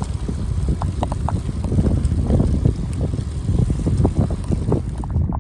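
Wind rushing over the microphone and tyre noise from a touring bicycle riding on a wet gravel road, with frequent small rattles and knocks.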